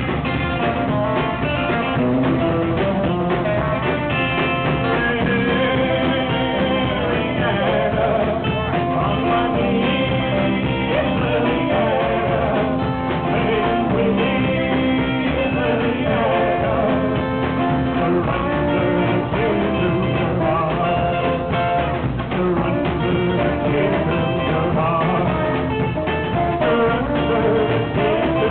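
Live roots rock band playing a song: guitar to the fore over a slapped upright bass, with some singing.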